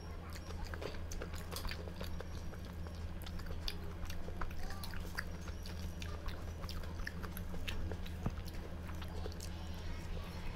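A person chewing and eating food, with many small irregular clicks and crunches, over a steady low hum.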